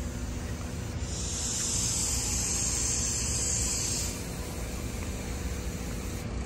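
Outdoor parking-lot ambience: a steady low rumble with a high, even insect buzz that swells from about a second in and fades out about four seconds in.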